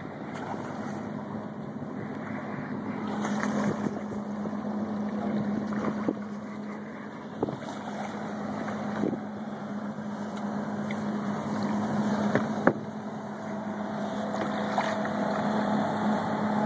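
Boat engine running with a steady hum, wind rushing on the microphone, and a few sharp knocks.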